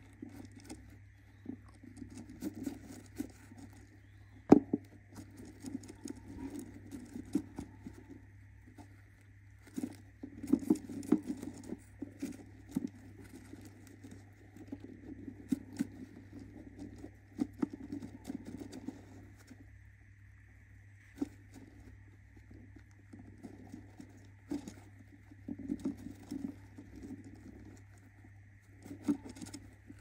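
Budgie hen shifting and scratching in a wooden nest box over her eggs: scattered clicks and scrapes of claws and beak on the wood and shredded paper, coming in irregular bursts, with one sharp knock about four and a half seconds in.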